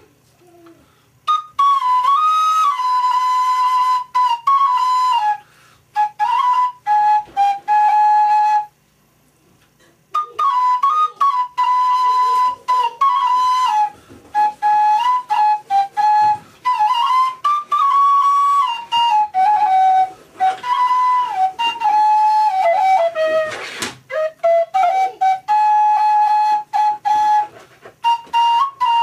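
Solo flute playing a slow melody in phrases, each note clear and held, with breath pauses between phrases and a longer pause about nine seconds in. A brief sharp knock sounds once, about three-quarters of the way through.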